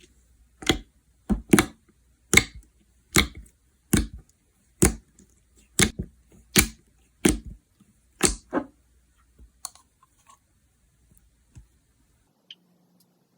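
Slime being pressed and worked by hand, giving sharp clicking pops of trapped air about once a second, which thin out to a few faint ticks in the last few seconds.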